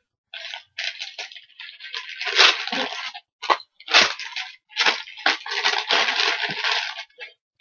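Clear plastic bag crinkling and rustling in bursts as it is handled and opened, with several sharp crackles.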